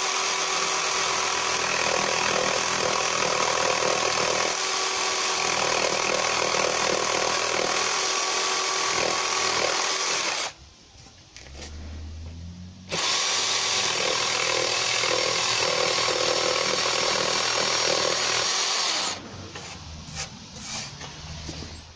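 Jigsaw with a thick blade cutting a timber rafter: it runs steadily for about ten seconds, stops for a couple of seconds, then cuts again for about six seconds, followed by a few quieter knocks near the end.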